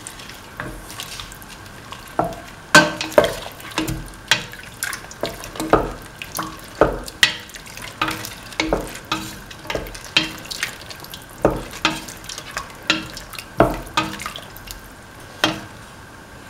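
A spoon stirring a runny coconut-milk vegetable stew in a metal pan, knocking and scraping against the pan every half-second to second. The stirring stops about a second before the end.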